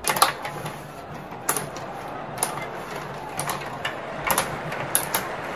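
Tabletop rod hockey game in play: metal rods sliding and spinning, and plastic players and puck clacking, in a run of irregular sharp clicks and knocks.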